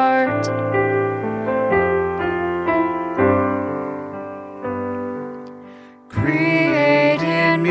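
Piano accompaniment playing alone between verses of a worship chorus, its notes fading away about six seconds in. A voice then comes back in, singing the next verse over the piano.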